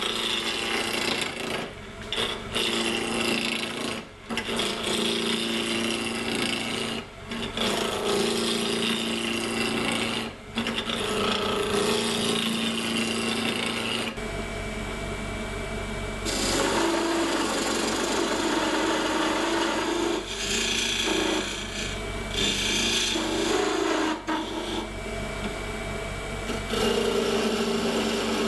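Delta 46-460 wood lathe running while a turning tool cuts a spinning olive wood blank: a steady rasping of the tool shaving wood over the lathe motor's hum, broken briefly a few times in the first half as the tool lifts off the wood.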